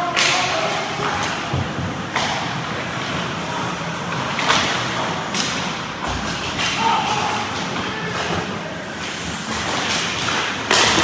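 Ice hockey play in a rink: about five sharp knocks of puck and players against the boards, over a steady hiss of skating and arena noise.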